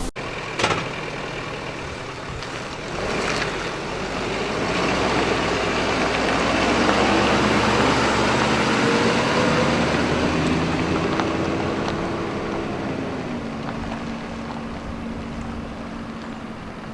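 A motor vehicle passing by: engine and road noise build up, peak in the middle, then fade, with the engine's pitch dropping a little as it goes.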